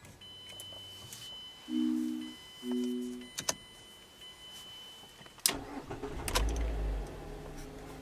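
Two short electronic chimes from the car's dashboard, then a click. About five and a half seconds in, the 2012 Mazda3 Skyactiv's 2.0-litre four-cylinder cranks and starts with a deep burst, then settles into a steady run.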